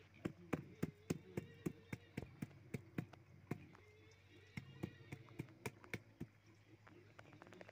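Large knife blade striking a wooden stump chopping block while an eel is cut on it: quick sharp knocks, about three or four a second, with a short pause around the middle and fewer strikes near the end.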